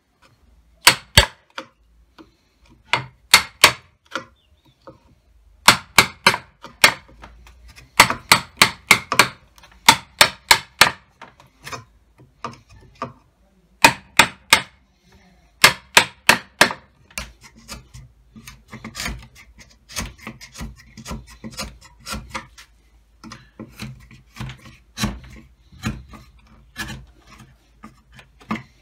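Wood chisel struck with a mallet, chopping out a mortise: sharp wooden knocks, some single and some in quick runs of several blows. Softer scraping of the chisel paring out the waste comes between the blows, more of it toward the end.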